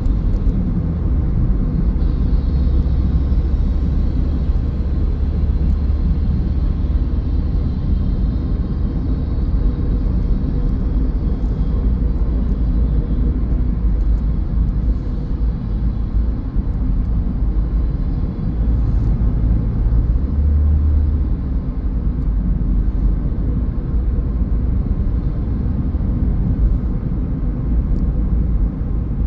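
Car driving on the road: a steady low rumble of engine and tyre noise, swelling briefly deeper about twenty seconds in.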